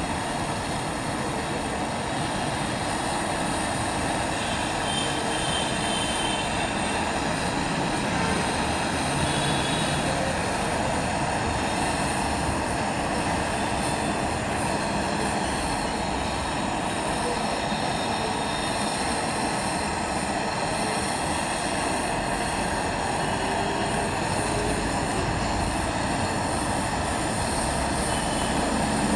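Brazing torch flame hissing steadily while it heats a copper U-bend joint on an air-conditioner coil.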